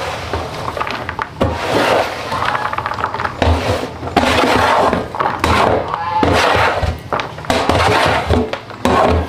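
Shredded coconut pouring and being shaken out of a plastic bin into a plastic basin: uneven rushes of rustling with a few thunks.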